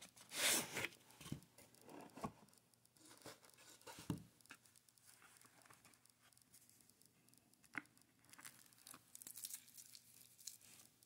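A cardboard watch box being handled and opened: a scraping rustle as the sleeve slides off, soft knocks as the box and lid are set down, then a sharp click and light rustling as the foam pad is lifted and the watch taken out.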